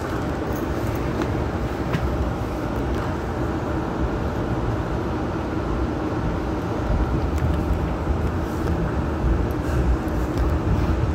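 Hong Kong Light Rail Phase I car running between stops, heard from inside: a steady low rumble of wheels on rail and running gear, with a light click or rattle now and then.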